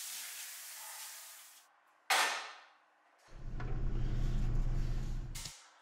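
Kitchen tap running water into a container, then a single sharp clang of kitchenware about two seconds in. A steady low rumble follows near the end.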